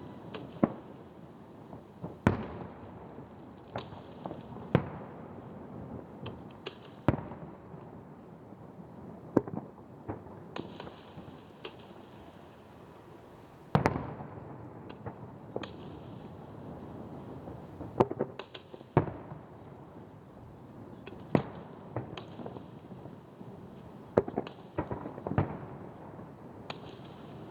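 Aerial fireworks bursting over the sea: a long run of sharp bangs at uneven intervals, each trailing off in echoes, with lighter pops in between.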